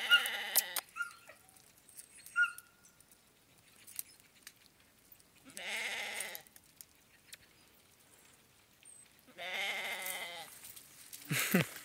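Three long, wavering bleats from livestock, spaced a few seconds apart, with two short high-pitched notes in between early on.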